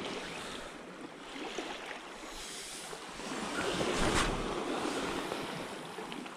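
Sea waves washing against the rocky shore, with wind buffeting the microphone; the rush of noise swells louder for a moment around four seconds in.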